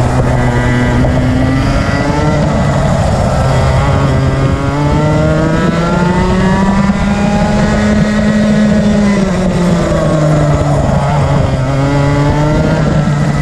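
Rotax Max Senior 125cc two-stroke kart engine at full racing load, heard onboard. Its revs climb for several seconds, drop about nine seconds in as the driver lifts for a corner, then climb again.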